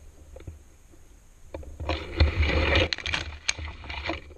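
Rustling and scraping of leaves and branches as someone pushes through dense brush on foot, over low footstep thumps. A louder patch of crackling rustle starts about a second and a half in and lasts about two and a half seconds.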